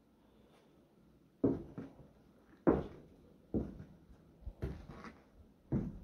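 Footsteps walking along the aisle floor of an old passenger rail car: five heavy steps about a second apart, starting about a second and a half in.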